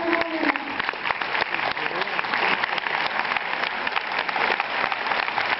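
Cinema audience applauding, a dense, even clatter of many hands clapping at once. A held voice fades out about half a second in.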